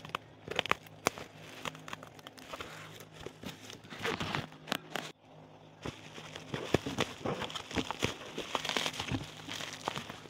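Plastic bubble wrap crinkling and crackling as it is handled and prodded with a pen, with many sharp clicks. It goes briefly quieter about five seconds in.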